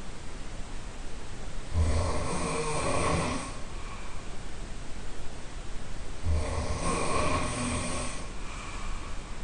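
A person snoring, heard from the next room: two long, deep snores, one about two seconds in and another about four and a half seconds later.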